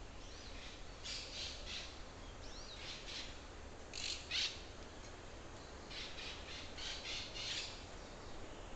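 Forest birds calling in bursts of short, harsh, raspy notes, the loudest pair a little before halfway, with faint thin gliding whistles between them over a steady low rumble.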